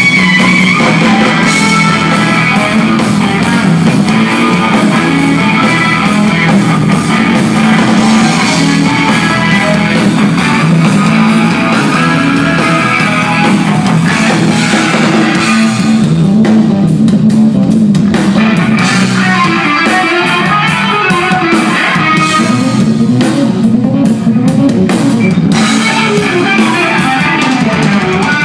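Live instrumental rock played by a trio: an electric guitar leading over a bass guitar and a drum kit, loud and continuous.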